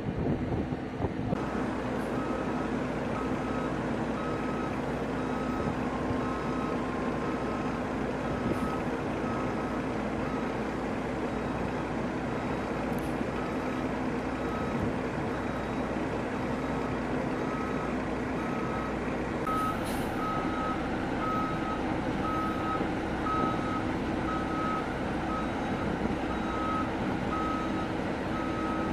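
A large fire truck's reversing beeper sounding about once a second over its steady engine noise, as the truck backs onto a C-130 Hercules's loading ramp. The beeps start about a second and a half in and grow louder in the second half.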